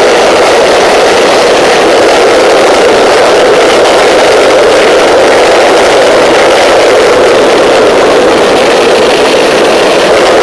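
Home-built turbocharger gas turbine engine running steadily under combustion, very loud and even.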